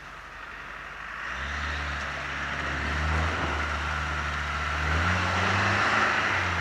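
Off-road 4x4's engine working under load: quiet at first, then revving up about a second and a half in, its pitch stepping higher twice as it pulls harder.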